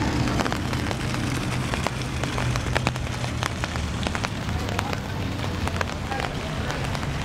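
Falling water pattering evenly, with many scattered sharp drop-like ticks, over a low steady hum.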